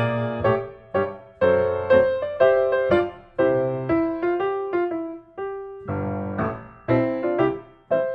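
Background piano music: chords and notes struck every half second or so, each fading away.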